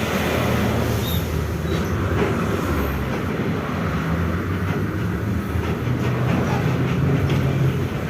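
Volkswagen 17-230 OD bus under way, its differential growling loudly as a steady low drone that shifts slightly in pitch, with light rattles over it.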